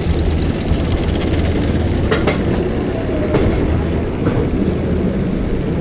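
Mack spinning coaster car running along its steel track: a steady low rumble with wheel rattle, and a few sharp clanks about two, three and four seconds in.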